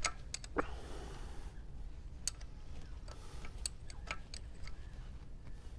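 Sparse, irregular metallic clicks and ticks of a hand tool loosening a bolt on a Honda CG 125 engine's cylinder head, with a brief scraping hiss about a second in.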